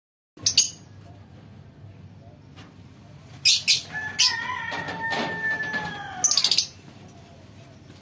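Lovebirds giving short, shrill chirps in several bursts: about half a second in, at about three and a half to four seconds, and a cluster near six and a half seconds. A wing flutter comes as one flies across, and a drawn-out tone falling slowly in pitch runs through the middle.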